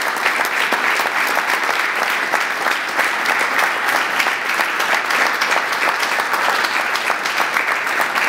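Banquet audience applauding steadily in a large hall, a dense patter of many hands clapping.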